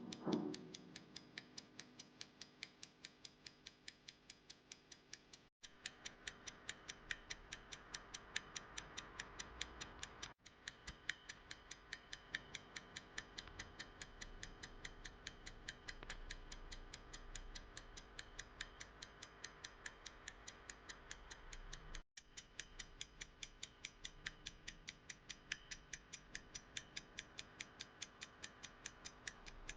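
Messagero Goliath pocket watch with a Roskopf-system pin-pallet movement, ticking faintly with an even, rapid beat. The ticking breaks off for a split second three times.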